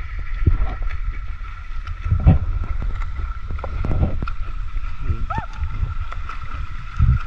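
Water lapping and sloshing against the hull of a small outrigger boat, with dull knocks every second or two and a low rumble of wind on the microphone.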